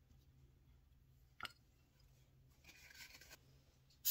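Quiet workbench handling: a single small click about a second and a half in, then a light rustle of a paper shop towel being handled.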